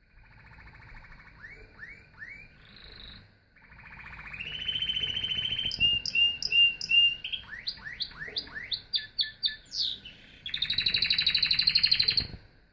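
Domestic canary singing a long, varied song: trills, a run of repeated notes and quick rising sweeps, ending in a loud, fast trill that stops near the end.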